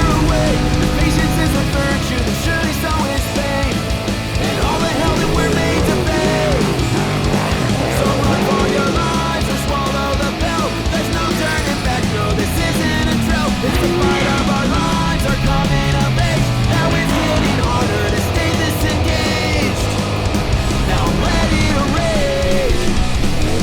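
Loud hard rock music with electric guitar, playing steadily throughout.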